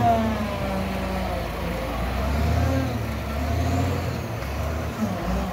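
Caterpillar 966D wheel loader's diesel engine working under load as the bucket is raised. Its whine falls in pitch over the first second as the revs drop, and then it runs on with a steady low rumble.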